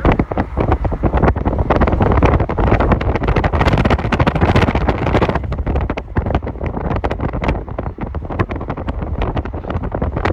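Heavy wind buffeting the microphone over the low rumble of a passing diesel freight train, with CN locomotives and covered hopper cars going by. The buffeting is strongest around the middle.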